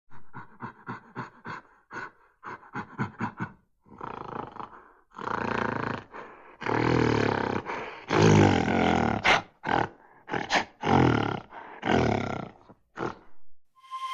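A large wild animal calling. It starts with a quick run of short grunts, several a second, then builds into a series of long, loud roaring blasts about a second each, and ends with a few shorter ones.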